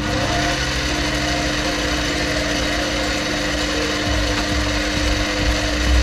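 Sieg C2 mini lathe running, its spindle turning a four-jaw chuck: a steady motor hum with a constant tone. A low rumble grows louder about four seconds in.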